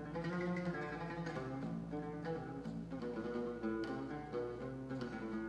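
Instrumental Arabic music: a qanun plucking a melody in a steady run of notes, with no singing.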